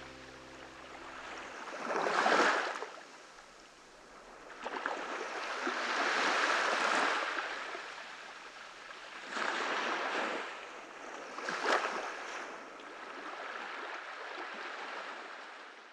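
Ocean waves washing onto a shore, each swell rising and falling back every few seconds. The last held note of a piece of music dies away in the first second or so.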